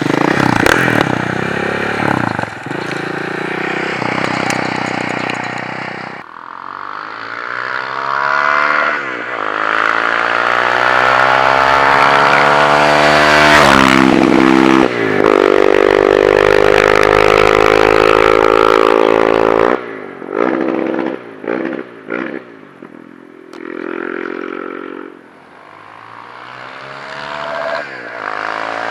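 KTM 690 SMC R's single-cylinder four-stroke engine through an Akrapovic exhaust, accelerating hard with its pitch climbing through the gears, with brief dips at the shifts. Over a second past the twenty-second mark it comes off the throttle, gives a quick series of short throttle blips, then pulls away again with rising pitch.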